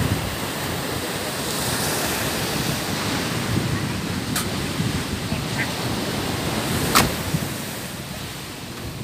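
Steady rushing of surf and wind. Two sharp clicks cut through it, the second and louder one about seven seconds in.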